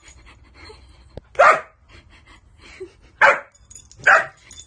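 A dog barks three times, short loud single barks spaced about a second or two apart.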